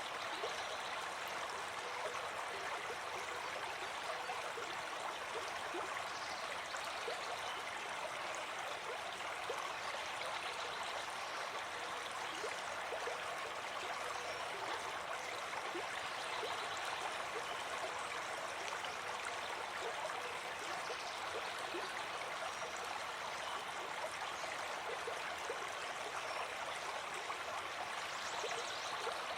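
Running water flowing steadily, an even rushing with small flickers of splashing through it.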